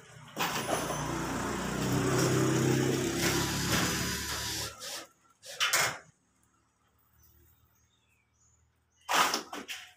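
Cordless drill driving a screw up through a ceiling panel, its motor running steadily for about four seconds, followed by shorter bursts about six seconds in and near the end.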